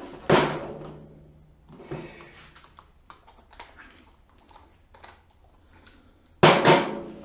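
Cordless drills and bits being handled: a loud knock just after the start and another near the end, each with a short ringing tail, and a scatter of light clicks and rattles between them.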